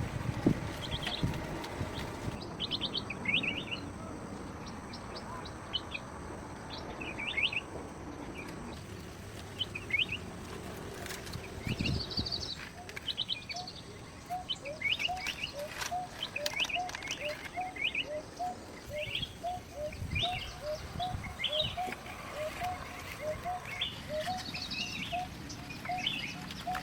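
Wild birds chirping and singing, with short high chirps throughout. From about halfway a lower call note starts repeating about twice a second. A few low thuds sound near the start and again later on.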